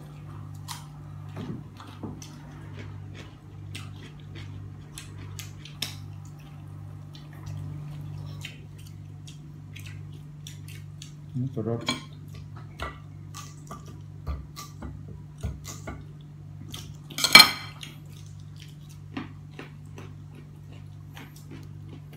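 Small scattered clicks and taps of eating and handling food and tableware, with one loud sharp clatter of dishes or cutlery about three-quarters of the way through. A steady low hum runs underneath.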